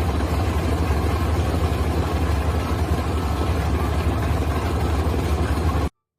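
Heavy engine running steadily with a deep rumble, which stops abruptly near the end.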